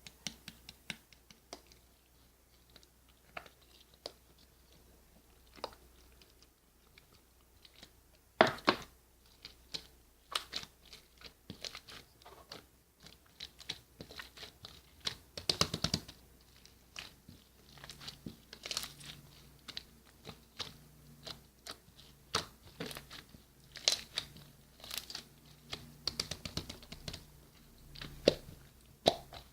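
Foam-bead slime being squeezed and pressed by hand, the beads crunching and crackling in sharp clicks. The clicks are sparse at first and become frequent and louder after about eight seconds.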